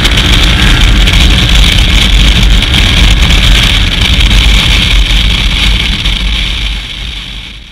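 Wind roar and engine noise of a KTM 990 Adventure motorcycle at road speed, picked up by a GoPro mounted on the bike: loud and rough. The noise falls away over the last two seconds.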